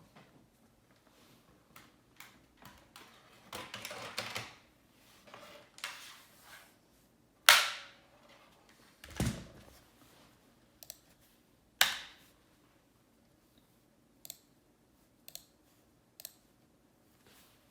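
Scattered sharp clicks and a short clatter of keys on a keyboard, with one dull thud about nine seconds in and a few single light clicks near the end, rather than steady typing.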